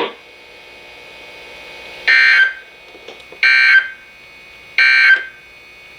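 Three short bursts of Emergency Alert System (SAME) digital data tones from a NOAA Weather Radio broadcast, about a second and a half apart: the end-of-message signal that closes the warning. A faint steady radio background fills the gaps.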